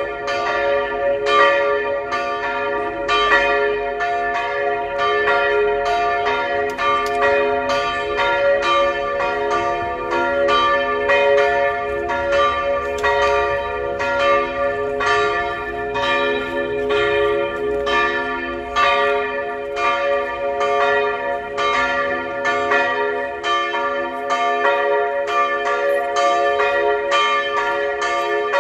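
Two historic church bells, tuned b' and d'', swinging and ringing together in full peal to call to mass, their strokes overlapping at about two a second over a continuous ringing hum.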